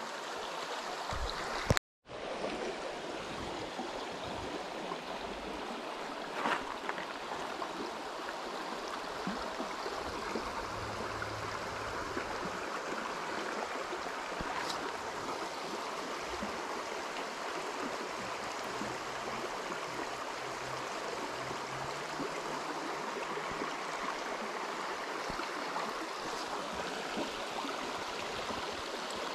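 Shallow, rocky pocket-water stream running over stones: a steady rush and gurgle of water, broken by a brief moment of silence about two seconds in.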